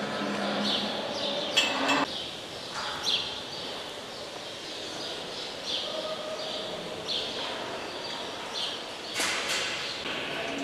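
Cattle-barn ambience: cattle lowing briefly once or twice over a background of repeated short high chirps. A louder clatter comes about one and a half seconds in and again near nine seconds.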